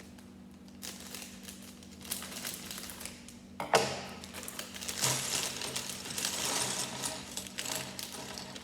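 Small plastic Lego pieces clicking and clattering as they are handled, with one sharp clack about four seconds in, followed by denser rustling and clicking.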